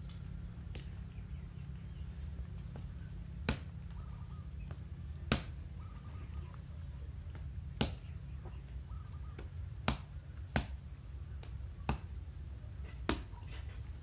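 A machete blade striking bamboo as it is chopped and split, about eight sharp knocks at irregular intervals over a steady low hum.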